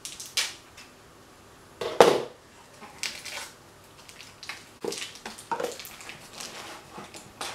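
Foil wrapper of a cream cheese block crinkling in short irregular rustles as it is cut and peeled by hand, with a louder clatter about two seconds in as the table knife is put down.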